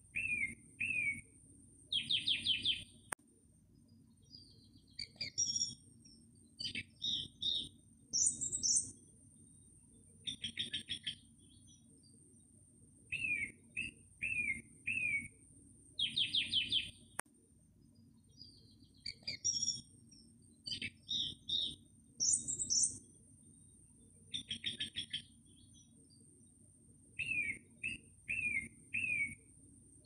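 Small birds chirping and trilling: a run of three or four quick downward-slurred chirps, then a rapid trill, with other scattered calls between. The whole sequence repeats about every 14 seconds as a loop, over a steady faint high hiss and a low rumble.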